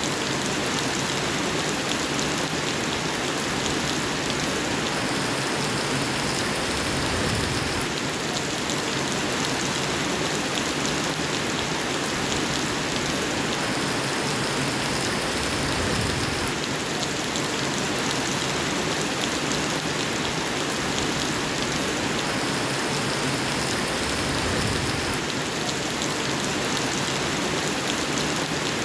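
Steady, dense rain falling on a surface, an even hiss of many drops with no let-up. The pattern recurs about every eight to nine seconds, like a short recording played on a loop.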